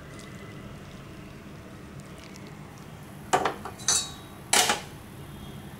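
Barley water poured through a stainless-steel mesh strainer, then three sharp, ringing clinks of steel kitchen utensils knocking together a little past halfway.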